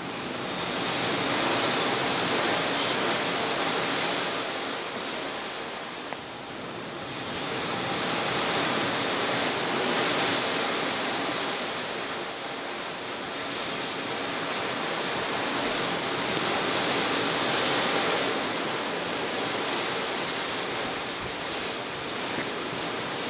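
Sea water rushing past the hull of a moving cruise ship, a steady hissing rush that rises and falls slowly in long swells.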